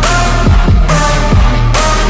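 Background music: a loud electronic, dubstep-style instrumental with heavy bass and a steady beat.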